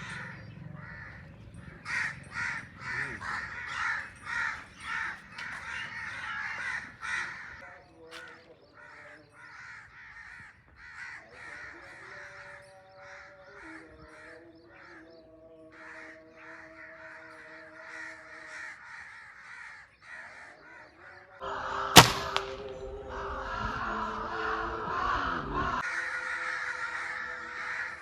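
Crows cawing over and over, many calls overlapping, with a single sharp shot crack about three-quarters of the way through, after which the cawing continues more densely.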